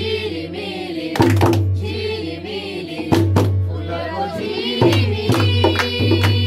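A group of women singing a Nepali Tihar folk song together, keeping the beat with sharp hand claps.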